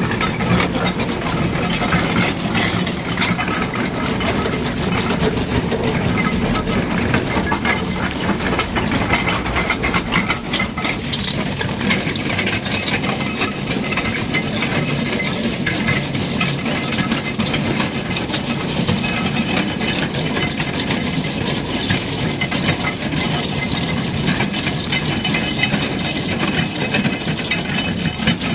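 Doosan 490 excavator's diesel engine running steadily under load, with a dense, continuous rattling and clicking from the working machine, here fitted with a trencher attachment.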